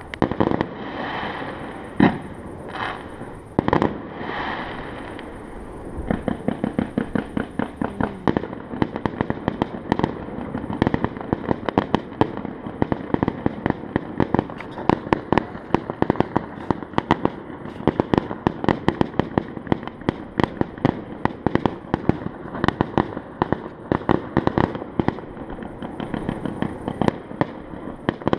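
Fireworks going off: a few separate loud bangs with crackling at first, then from about six seconds in a dense, rapid rattle of bangs, several a second, like firecracker strings.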